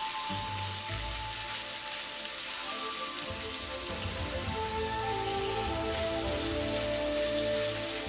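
Marinated pork bulgogi slices sizzling as they fry and brown in an oiled non-stick wok, a steady dense hiss.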